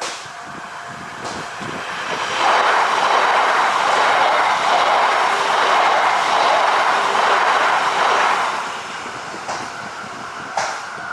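A train passing at speed over a level crossing. The rushing wheel and air noise builds over about two seconds, holds loud for about six seconds, then falls away.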